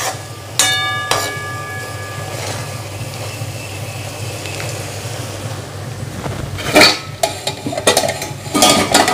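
A steel spatula stirring a tomato, onion and carrot mixture in a metal kadai. The spatula strikes the pan with a clang that rings out about half a second in, then scrapes and clinks against the pan in two bursts near the end, over a steady low hum.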